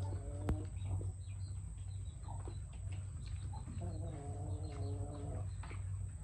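A bird's drawn-out, level call of nearly two seconds about two thirds of the way through, with faint chirps, over a steady low hum. A single sharp click comes about half a second in.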